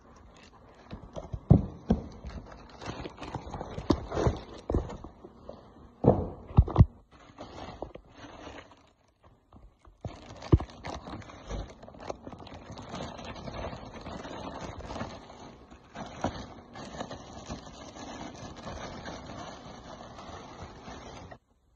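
Packaging being handled around a plastic-wrapped ASIC miner: a run of hollow knocks and thumps over crackling in the first half, then, from about ten seconds in, a long stretch of steady rustling and crinkling of plastic wrap.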